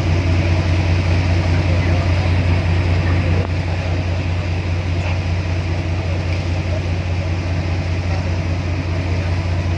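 Jet ski engine running steadily at cruising speed, a loud low hum that eases off slightly about three and a half seconds in.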